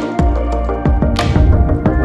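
Electronic background music with sustained chords and a steady beat.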